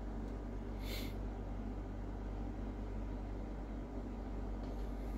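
Steady low hum of room noise, with one brief paper rustle about a second in as the CD's obi strip is handled.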